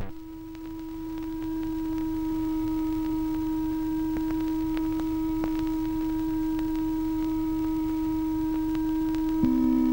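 Film soundtrack music: a single steady held tone with faint overtones and scattered faint clicks, joined near the end by a second, lower held note.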